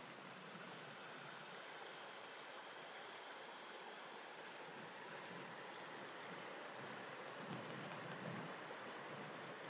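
Faint, steady rushing of a shallow, clear stream running over a stony bed.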